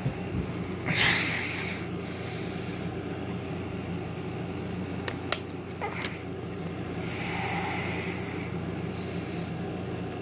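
Clear plastic DVD disc trays handled by hand, with a few sharp plastic clicks around five and six seconds in. Under it runs a steady low hum, with a couple of breathy puffs close to the microphone about a second in and near the end.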